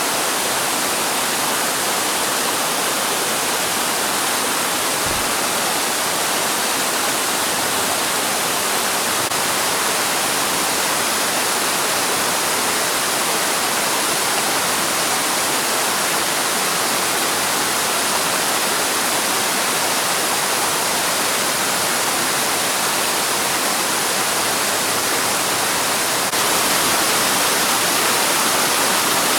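Steady rush of water from a spring-fed waterfall, running on under its winter ice. It gets slightly louder near the end.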